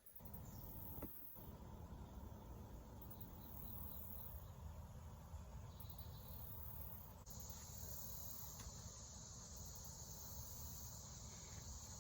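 Faint, steady chirring of insects, with a higher, steady buzz joining in about seven seconds in.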